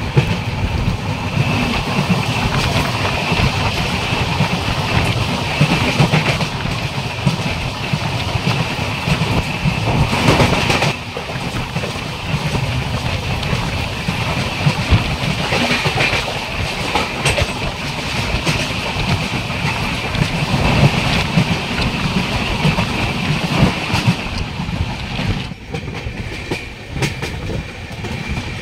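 Darjeeling Mail express train running on the rails, heard from on board: a steady, loud rumble and clatter of the wheels on the track.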